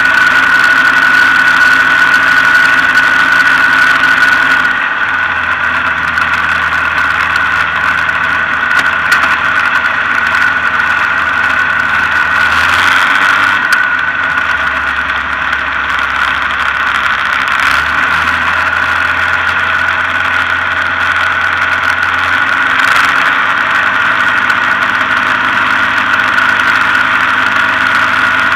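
Rans S-12 light aircraft's engine and propeller running at low power while taxiing, heard from the open cockpit, with a steady high whine over the engine note. The engine note shifts slightly about five seconds in and a few times after that.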